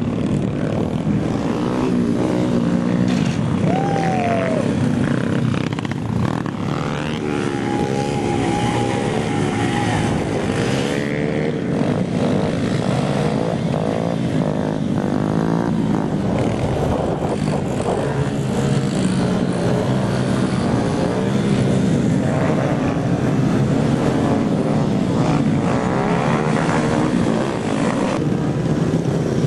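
Several small motorcycle engines, Honda Groms and pit bikes, revving up and down over and over as riders pull wheelies, their pitches overlapping and crossing.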